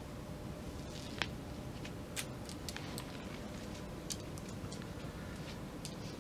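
Pleaser Flamingo-800-20 8-inch patent platform heels being walked in on carpet: scattered light ticks and creaks at an irregular pace over a steady low room hum.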